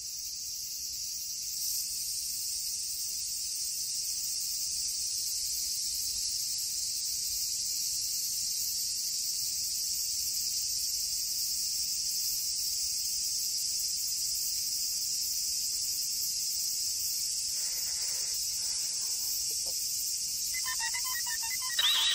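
A steady, high-pitched chorus of cicadas shrilling without a break, the stock sound of summer heat. Near the end, a short run of electronic beeps.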